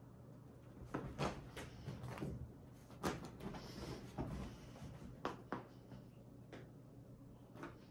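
A string of light knocks and clicks, with brief fabric rustling in the middle, from a cat wand toy being picked up off the bedding and handled.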